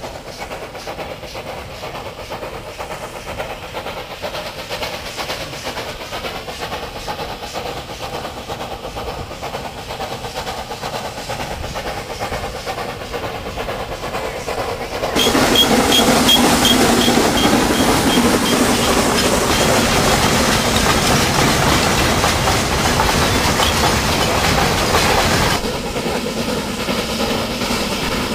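Steam locomotive hauling a coal train, running steadily and growing louder as it approaches, with a rattle of wagons on the track. About halfway through it becomes suddenly much louder as it draws close, then eases back a little near the end.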